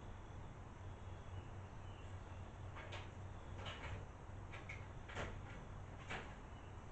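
A few light clicks and knocks, about five of them in the second half, over a faint low steady hum.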